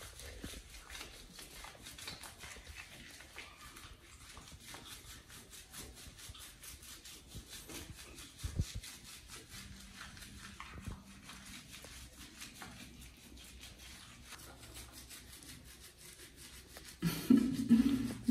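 Hands scrubbing soapy lather into a baby monkey's wet fur, a soft continuous rubbing, with a dull thump about eight and a half seconds in. A voice starts near the end.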